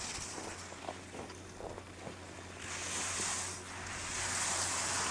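Ski edges scraping and carving on hard snow during giant slalom turns: a hissing swish that swells with each turn, two long ones in the second half.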